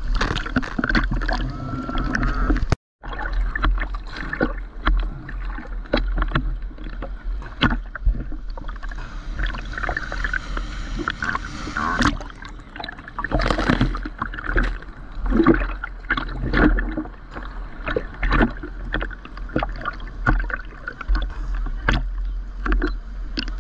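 Water sloshing and splashing against a GoPro's waterproof housing held at the sea surface, heard muffled over a steady low rumble. The sound cuts out completely for a moment about three seconds in.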